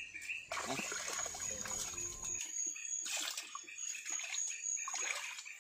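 Night forest ambience: a steady high-pitched insect drone that breaks off now and then, over irregular soft crackling, trickle-like noise.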